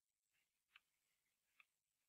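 Near silence, with two faint clicks about a second apart.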